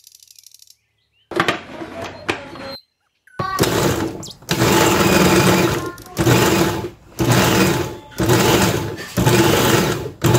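Tefal food processor chopping peeled garlic cloves in olive oil, run in repeated pulses about a second long with short breaks between. The motor starts about three and a half seconds in, after near silence and a short handling noise.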